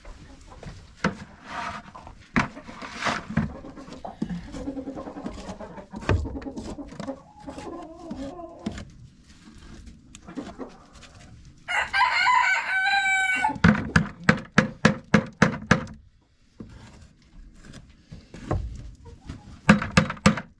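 A rooster crows once, a pitched call of almost two seconds about halfway through, the loudest sound here, among hens clucking. Right after the crow comes a quick run of knocks, about four a second for two seconds, and a few more near the end.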